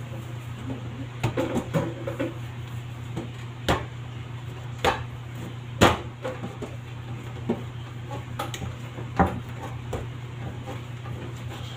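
Pizza dough being rounded into balls by hand on a stainless steel worktable: irregular sharp taps and knocks as the dough and hands strike the metal, a handful of them louder than the rest, over a steady low hum.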